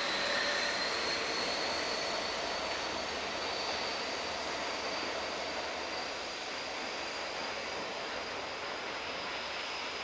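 Class 43 diesel power cars of a departing High Speed Train pulling away into the distance: a steady engine drone with a high whistle that slowly rises in pitch, fading gradually.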